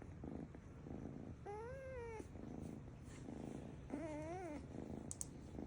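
A cat purring in a steady rhythm, with two short meows that rise and fall in pitch, about a second and a half in and about four seconds in; the meows are a baby-like sound.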